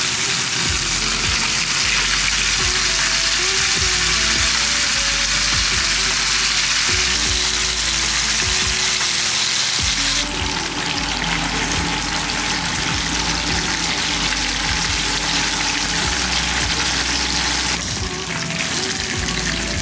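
Masala-coated fish pieces frying in hot oil, a steady loud sizzle.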